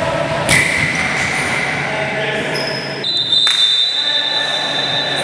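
Futsal game in a sports hall: a sharp ball strike about half a second in followed by a steady high tone, players' voices, and from about three seconds in a long, higher steady tone with another strike under it.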